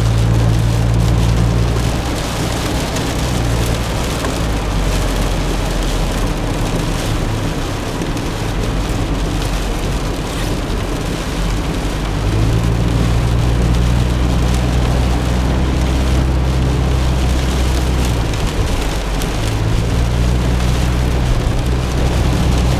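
A car driving on a wet highway in the rain, heard from inside the cabin: a steady hiss of rain and tyre spray, under a low hum that fades out about two seconds in and comes back about twelve seconds in.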